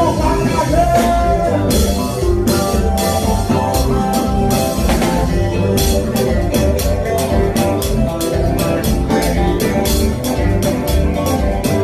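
Live kompa band playing an instrumental passage: keyboard, electric guitar and drum kit over a steady beat, with regular cymbal strokes.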